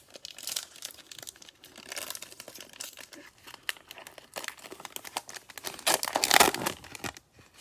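Thin plastic crinkling and crackling as trading cards are handled and pushed into plastic card sleeves, loudest a little after six seconds in.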